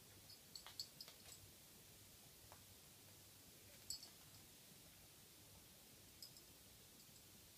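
Faint, sharp clicks of a cat's claws and paws on a laminate floor as it pounces and moves about. They come in quick clusters: several in the first second and a half, a couple about four seconds in, and one more near the end.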